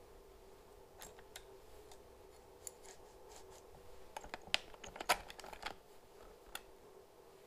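Saw chain links and the steel guide bar of an Echo CS-590 chainsaw clicking and rattling as the bar and chain are fitted back onto the drive sprocket. The clicks are scattered at first and come thickest about halfway through.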